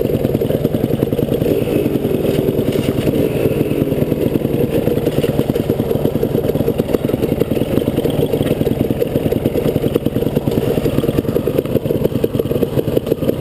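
Dirt bike engine idling steadily, a fast even beat of firing pulses.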